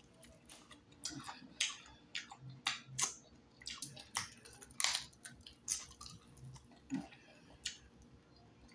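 Close-miked chewing and biting of crunchy deep-fried turtle: irregular crisp crunches, about two a second, with a faint low hum between them.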